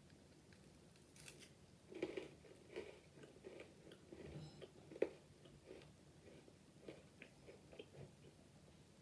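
Chocolate-covered pretzel being bitten and chewed close to the microphone: a run of small crisp crunches starting about two seconds in, with the sharpest crack about halfway through.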